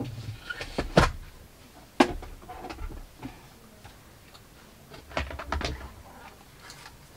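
Objects being handled and shifted during rummaging: a few sharp knocks and clacks, the loudest about one and two seconds in, then a short cluster of clatter and rustle about five seconds in.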